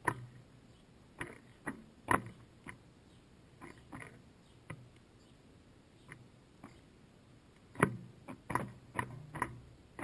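A house sparrow pecking at seed in a feeder right by the microphone: irregular sharp taps and seed rattles, coming thickest near the end.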